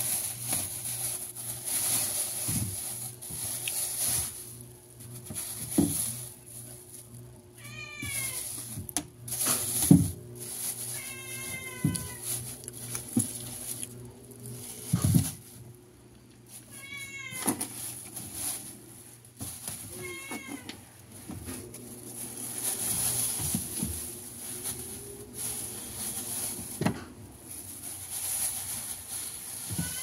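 Thin plastic produce bags rustling and crinkling as a hand moves through them, with a few dull knocks of vegetables shifting. A cat meows about five times throughout, over a steady low hum.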